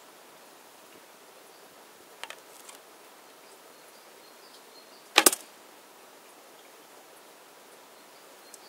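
Bowstring of a traditional recurve bow snapping as an arrow is loosed, one sharp crack a little past five seconds in. Two faint clicks a little over two seconds in come as the next arrow is handled onto the string.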